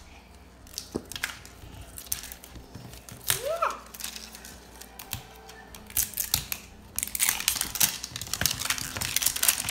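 Plastic-and-paper wrapper of a toy surprise ball being peeled off by hand, crinkling and crackling, much busier in the last few seconds.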